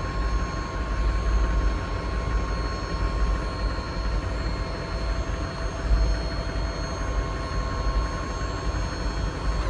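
6.6 L Duramax V8 turbo-diesel running steadily: a deep, even rumble with faint steady whines above it.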